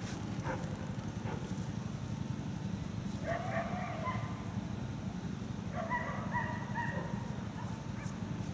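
A dog yelping and whining in two bouts, about three seconds in and again about six seconds in, over a steady low rumble.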